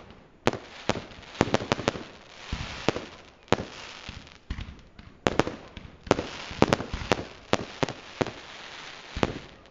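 Aerial fireworks shells bursting in the sky: more than twenty sharp bangs at uneven intervals, several coming in quick clusters, with a noisy hiss between them.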